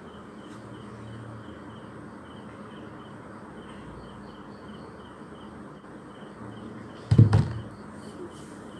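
A single dull thump about seven seconds in as a mobile phone is set down on a tabletop, over quiet room tone with a faint high chirping that repeats a few times a second.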